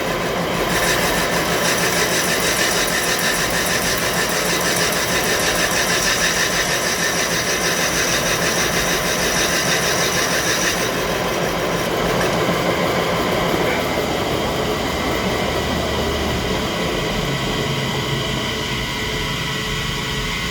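A machine running steadily, with a high steady tone that stops about eleven seconds in while the running noise continues.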